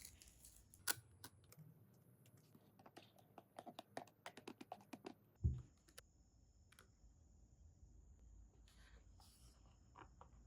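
Faint small clicks and taps of hands handling the plastic packaging of a diecast model car, with one soft thump about five and a half seconds in.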